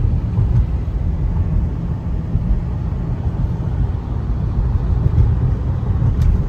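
Steady low rumble of road and engine noise heard from inside a moving vehicle crossing a bridge.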